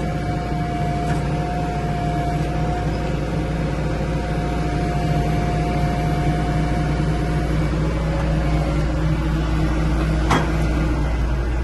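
Cat D10R crawler tractor's Cat 3412 diesel engine running steadily. A high steady whine over it stops about seven and a half seconds in, and a single sharp click comes about ten seconds in.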